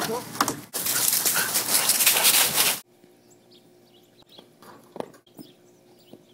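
A dog makes brief sounds amid a loud rushing noise, which cuts off suddenly about three seconds in. A few faint thuds follow.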